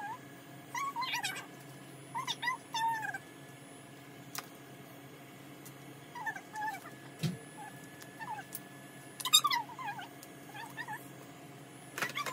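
Short, high-pitched vocal calls that bend in pitch, coming in small clusters every second or two, the loudest about nine seconds in, over a steady low hum.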